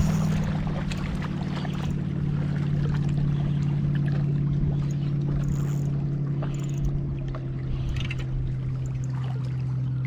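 A boat motor running at a steady pitch, easing slightly lower just after the start, over water noise.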